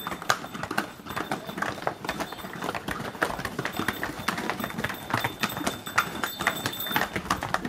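Hooves of a string of pack donkeys clip-clopping on stone steps and paving, many irregular, overlapping hoof strikes from several animals.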